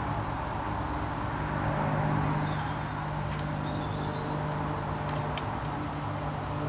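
Steady low hum of a running motor, with a few faint high chirps and a couple of light clicks.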